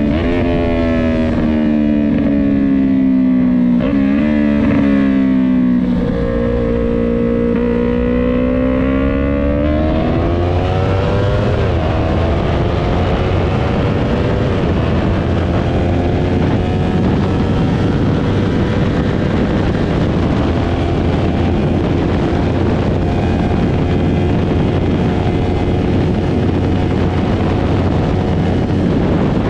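Yamaha R3's parallel-twin engine with a Jeskap full mini GP aftermarket exhaust, ridden under way. The engine note sags and holds, then rises sharply as the bike accelerates about ten seconds in, and runs on at speed under a loud rushing noise.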